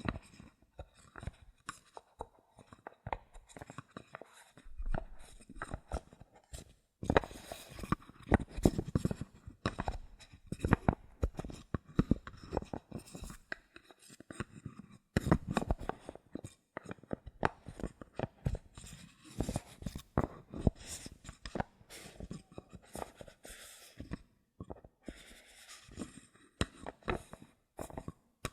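Bottle caps handled close to the microphone: a dense, irregular run of small clicks, taps and scratches, with a few longer stretches of scratchy rustling.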